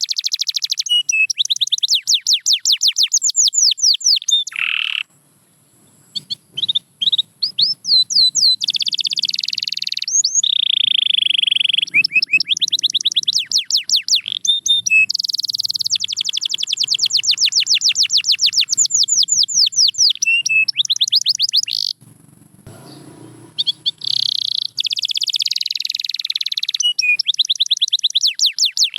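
Domestic canary singing: long rolling trills of fast repeated high notes, each a quick downward sweep, with a lower drawn-out note just before a short break about five seconds in and another short break a little past twenty seconds.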